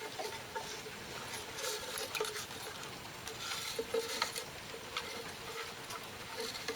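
Faint scattered light clicks and taps over a faint steady hum.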